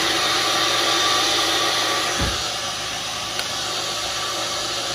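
Nutri Ninja personal blender running steadily at full speed, blending water, lemon, cucumber and pineapple into a drink.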